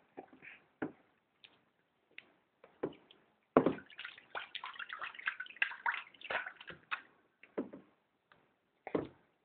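Water splashing in a bathtub: scattered single splashes and drips, with a busy flurry of splashing from about three and a half to seven seconds in.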